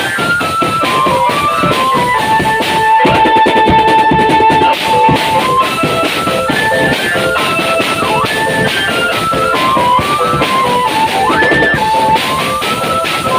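Band music: a melody stepping up and down, with one long held note about three seconds in, over steady drumming.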